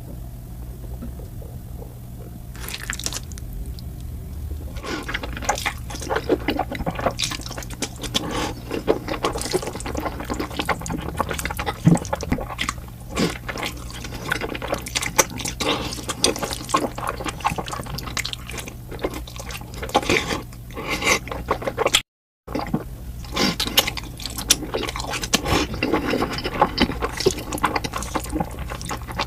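Close-miked eating sounds: a person chewing, with wet mouth sounds and a dense run of irregular crackling clicks over a steady low hum. The sound cuts out briefly about three-quarters of the way through.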